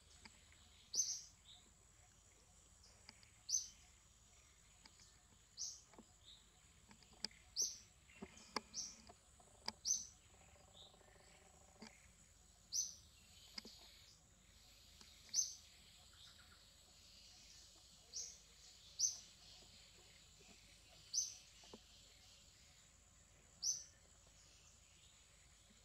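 A bird repeating a short, high chirp about every two to three seconds.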